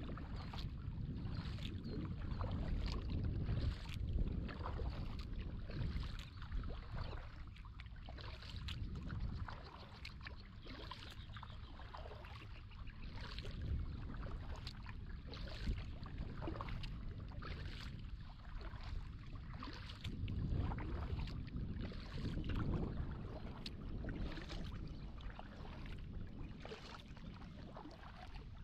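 Kayak paddling: the paddle blades dip and splash in the water, with many small irregular splashes and drips over a steady low rumble.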